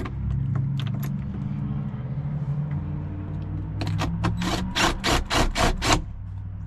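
Cordless DeWalt driver running a bolt in with a steady motor hum for about four seconds, then about eight short, sharp bursts in quick succession as the bolt tightens up.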